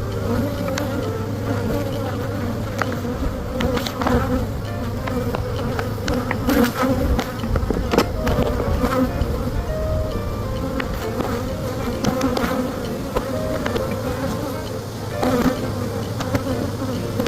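Honey bees buzzing in a steady hum around an open hive, with a few scattered sharp clicks and knocks.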